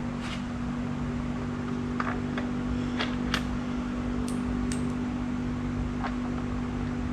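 Steady hum of a fan running, with light clicks and taps scattered over it, about ten in all.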